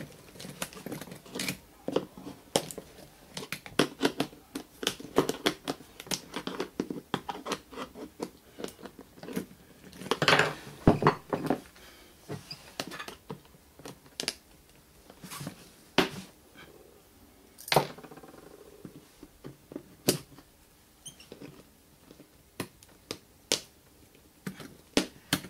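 Irregular clicks, taps and short scrapes of a small metal hand tool working at the hard plastic base and fittings of a rolling suitcase's trolley-handle mount. The clicks come thick and fast at first, loudest about ten seconds in, then thin out to single clicks every second or two.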